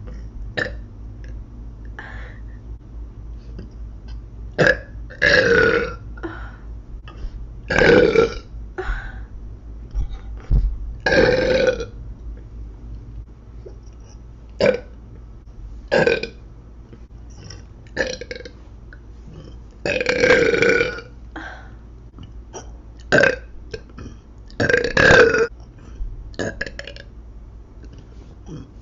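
A woman burping over and over: more than a dozen separate burps with pauses between them, most short and a few longer and drawn out, each about a second.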